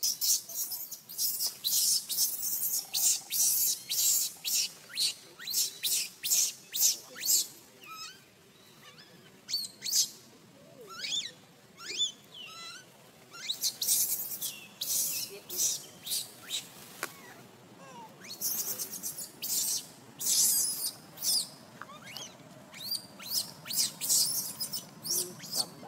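Newborn macaque squealing: a rapid run of short, shrill cries, several a second, mixed with thin rising and falling squeaks, with two brief lulls.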